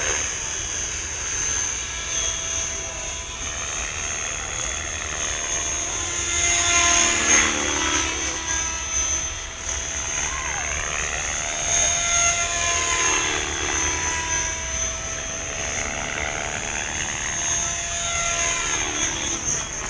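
Radio-controlled helicopter flying and manoeuvring in the air. Its motor-and-rotor whine rises and falls in pitch in several long sweeps.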